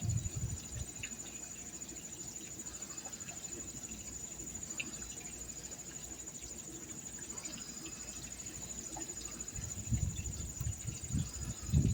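Steady, high-pitched insect trill with a fast pulse, like a cricket, running without a break. Low rumbling thumps come in near the start and again over the last two seconds.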